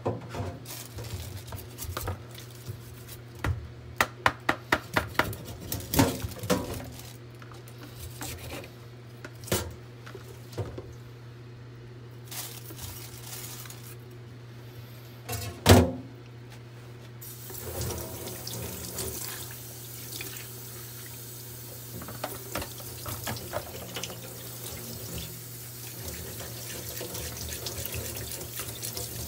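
Kitchen knife chopping and cutting a mackerel in a stainless steel sink: a string of sharp knocks and clicks, the loudest a single knock about halfway. Then the tap comes on and water runs steadily into the sink while the guts are rinsed out, over a steady low hum.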